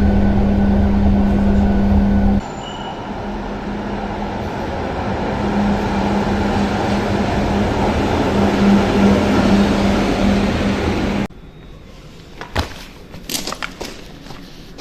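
Charleroi Metro light-rail tram running: first a loud ride with a steady motor hum, then a tram rumbling along an underground platform, growing louder. About 11 seconds in it cuts to a much quieter stretch with scattered sharp clicks and taps.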